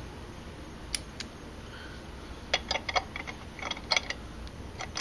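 Light metal clicks and taps from a 10 mm socket on an extension being fitted onto and turned on a bolt by hand, coming in a few short irregular clusters.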